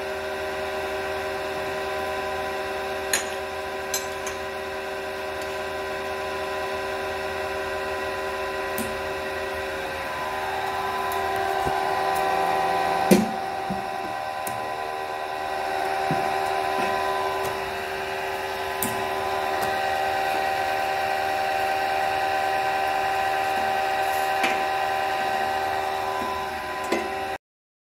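Hydraulic power pack of a slot-cutting press, its electric motor and pump running with a steady hum and whine that swells louder at times. A few sharp metallic clicks, and one louder knock about 13 seconds in.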